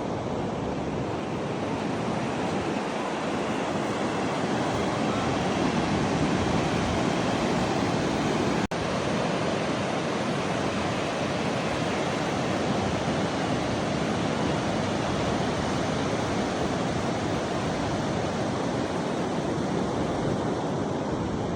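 Steady rushing noise of Pacific Ocean surf mixed with wind, swelling slightly at times, with a brief dropout about nine seconds in.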